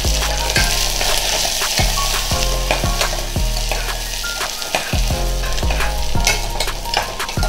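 Chopped onions sizzling as they fry in hot oil with whole spices in a pressure cooker, stirred with a metal ladle that scrapes and clicks against the pot.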